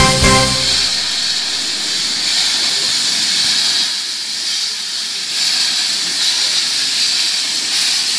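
Steady hiss of escaping steam from a narrow-gauge Hunslet saddle-tank steam locomotive as it draws slowly alongside the platform, steam venting low around its wheels.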